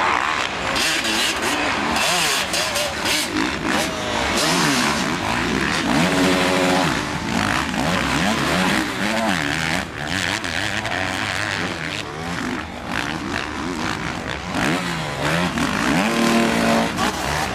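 Several motocross bikes racing, their engines revving up and down over one another as they accelerate and back off.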